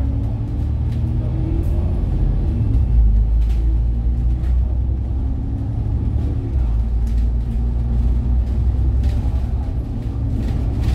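A bus running along a city road, heard from inside: a steady low engine and road rumble, with the engine note rising and falling and frequent short rattles and clicks.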